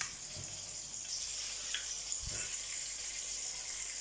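Fish curry boiling in a clay pot, a steady bubbling hiss. A soft low thump comes a little past halfway.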